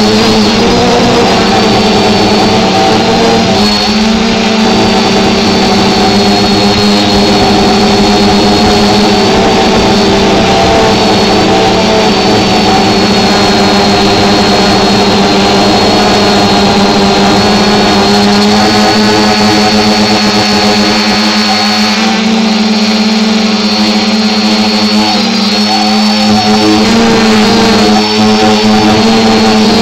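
Small camera drone's electric motors and propellers buzzing loudly close to the microphone: a steady hum whose pitch shifts a little now and then as it hovers and drifts.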